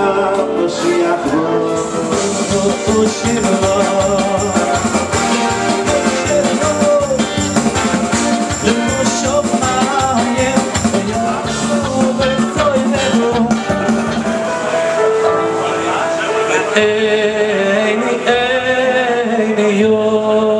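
A man singing into a handheld microphone over amplified band accompaniment with a steady beat, heard through the PA.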